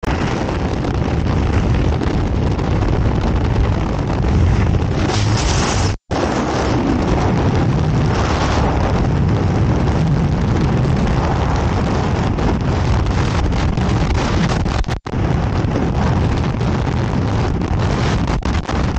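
Skydiving freefall wind rushing over the camera's microphone, a loud steady roar, starting from the open door of the aircraft. The sound cuts out for a split second twice, about six and fifteen seconds in.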